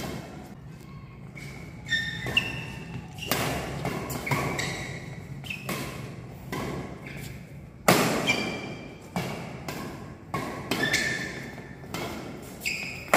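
Badminton rackets striking a shuttlecock in a fast doubles rally drill, about one sharp hit a second, the loudest about eight seconds in. Between the hits come short high squeaks and thuds from players' shoes on the hard court floor.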